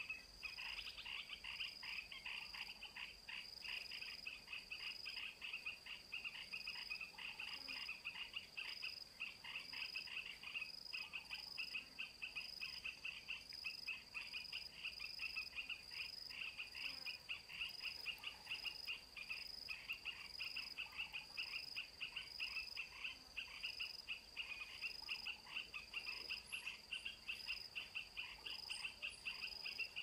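Steady chorus of calling insects and frogs: a high continuous trill with a fast, even pulsing chirp beneath it.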